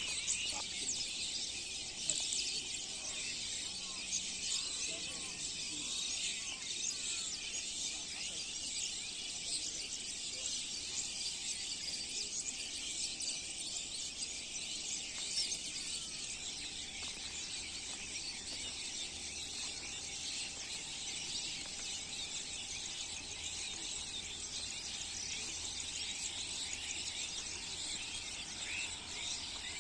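Many small birds chirping and twittering at once, a dense steady chorus of short high calls.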